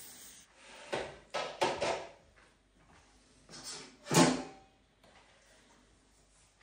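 Kitchen handling sounds at the counter as dog food is dished out: a few short knocks and scrapes in the first two seconds, and the loudest knock about four seconds in.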